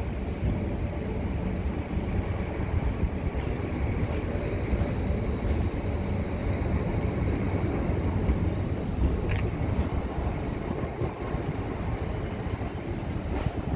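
Greater Anglia Class 745 electric multiple unit running along a platform: a steady low rumble of wheels on track, with a short squeal about nine seconds in.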